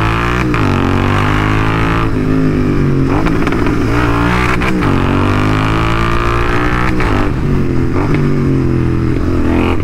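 Royal Enfield 650 parallel-twin engine being shifted down with throttle blips for rev-matching. The revs jump up about four times, and after each jump they sink steadily as engine braking slows the motorcycle.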